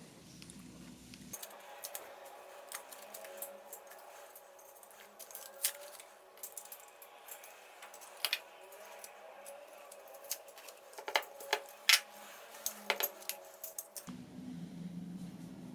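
Small hard objects clicking and clinking: an irregular scatter of sharp ticks that gets busier and louder about three quarters of the way through.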